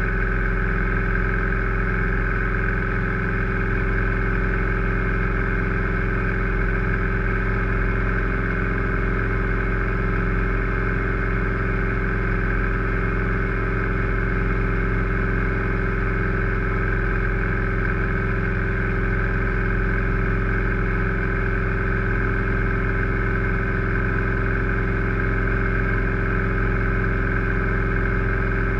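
Grumman AA-5A Cheetah's four-cylinder Lycoming O-320 engine and propeller running steadily at constant power during the climb-out after take-off, heard from inside the cabin. The pitch holds steady throughout.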